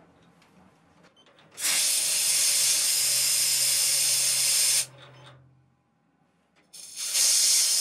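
Compressed-air blow gun blowing chips off a freshly knurled bar on the lathe: two long bursts of hiss, the first about three seconds long starting a second and a half in, the second starting near the end.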